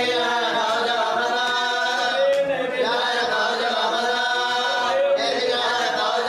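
A man's voice reciting a marsiya, an Urdu elegy, as an unaccompanied chant with long held notes that bend up and down in pitch.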